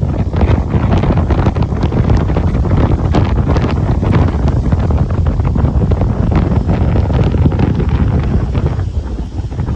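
Strong wind buffeting the microphone, over the rush of a rough sea; the buffeting eases a little near the end.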